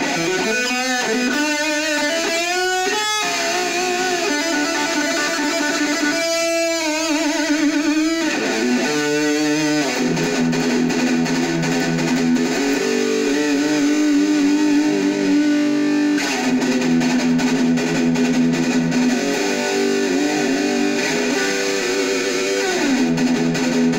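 Heavily distorted electric guitar, a Jackson KVXMG with EMG 81/60 active pickups, played through a Black Truck distortion pedal into an Orange Micro Dark hybrid tube amp and a PPC108 1x8 speaker cab. It opens with rising slides and bends, then settles into held, sustained notes that change every few seconds.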